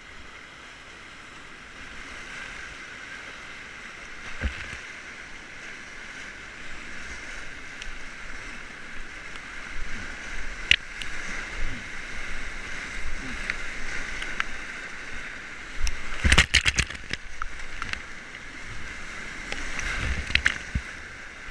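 Whitewater rapids rushing around a kayak, with paddle strokes and waves splashing over the bow. A burst of loud splashes comes about three-quarters of the way through, and another shortly before the end.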